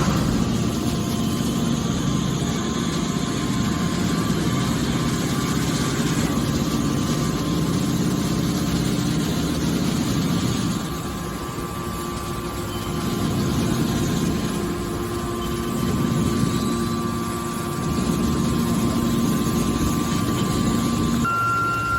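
Hydraulic scrap metal baler running: a steady machine drone with a low hum, dipping a little in level about halfway through.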